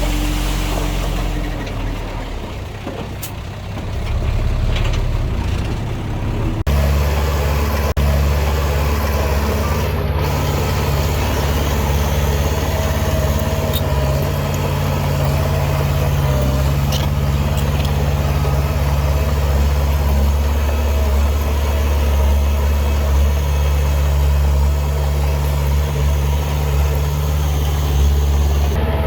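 Diesel engine of heavy earthmoving machinery running at a steady speed with an even low hum. Before that there is a quieter, uneven stretch, and the sound changes abruptly about seven seconds in.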